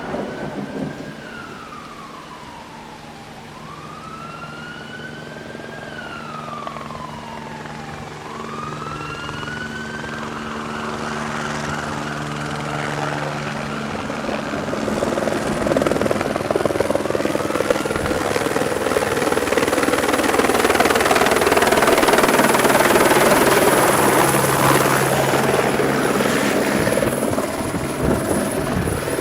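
An emergency-vehicle siren wails in slow rising-and-falling sweeps. About a third of the way in, a helicopter's rotor and engine noise takes over and grows much louder, with a thin high turbine whine above it.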